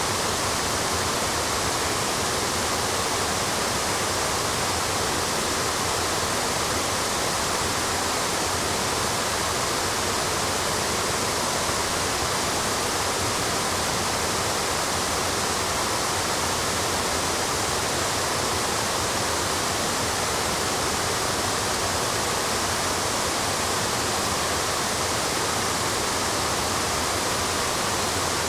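Waterfall cascades rushing over granite steps, a steady, unchanging roar of falling water.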